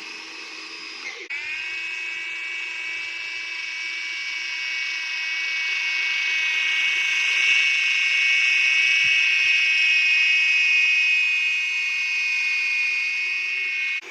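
Small electric motor running with a steady high-pitched whine. It breaks off briefly about a second in, then grows a little louder toward the middle.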